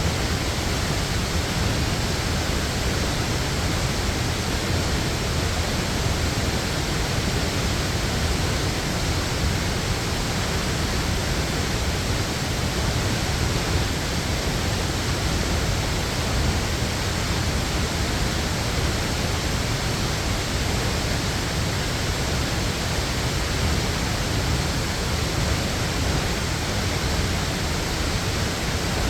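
Waterfall pouring steadily: a constant rushing hiss over a deeper rumble, with no change in level throughout.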